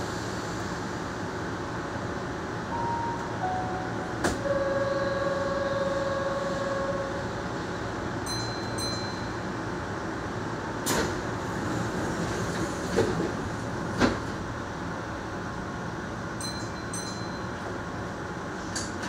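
Keihan train standing at an underground station platform, its steady hum going on throughout. A falling two-note chime sounds about three seconds in, then a steady electronic tone for a couple of seconds, short high beeps twice, and a few sharp clicks.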